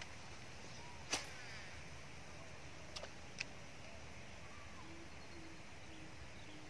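Spinning or casting reel and rod during a cast: one sharp snap about a second in with a brief whirr after it, then two light clicks around the middle, over a steady hiss of wind.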